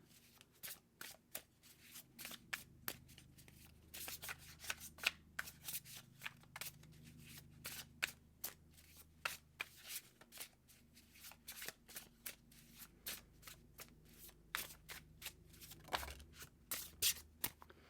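A deck of tarot cards being shuffled by hand to draw clarifier cards: a long, irregular run of quick card snaps and flicks, several a second.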